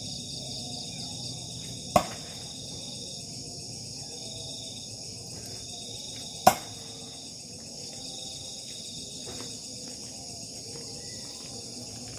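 Two thrown knives hitting a hanging wooden target, each a short loud thud into the wood, about four and a half seconds apart. Crickets chirp steadily underneath.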